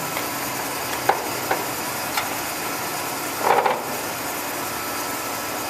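2002 Clausing-Colchester 15-inch lathe's geared headstock running, a steady whir with a faint steady tone, while the spindle speed is being raised. A few light clicks and a short clatter about three and a half seconds in.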